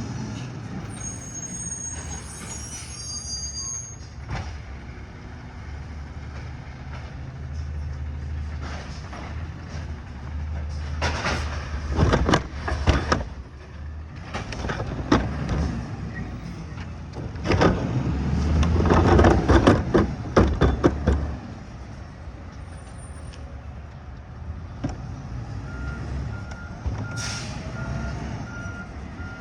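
Heavy truck engine running steadily, with two spells of loud clattering and banging in the middle. Near the end comes a short air-brake hiss, then the truck's reversing alarm starts beeping at about two beeps a second.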